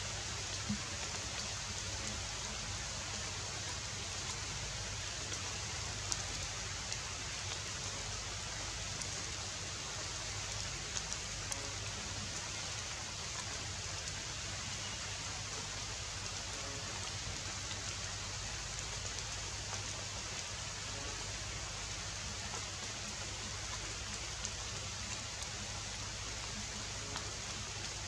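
Steady, even outdoor background hiss with a few faint ticks; no monkey calls stand out.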